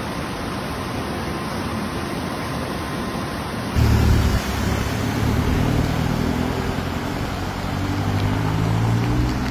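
Steady rushing noise of floodwater, then about four seconds in a sudden change to a vehicle engine with a low, steady hum under the water noise.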